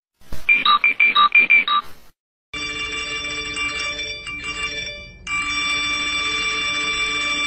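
A quick run of about eight short electronic beeps at changing pitches, like a phone ringtone, then a steady electronic tone that dips briefly in the middle and comes back a little louder.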